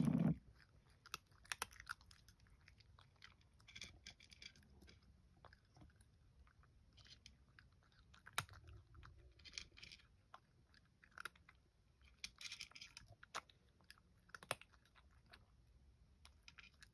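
A domestic cat eating dry kibble: faint, irregular crunching as it bites and chews. The crunches come in short spells of several at a time with pauses between.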